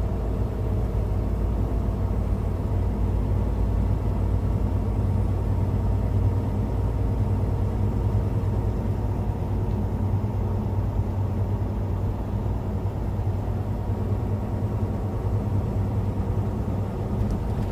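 Semi truck's diesel engine and tyres running steadily at highway speed, heard from inside the cab as an even low drone with a deep hum.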